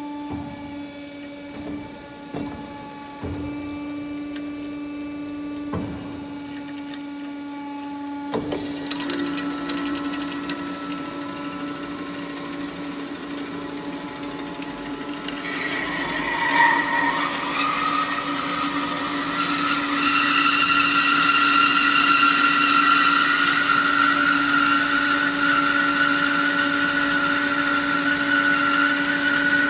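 CARIF 320BSA band saw running with a steady hum, with a few sharp clicks and knocks in the first third. About halfway through, the blade starts cutting into the metal stock and a loud hissing screech with a ringing tone builds and carries on.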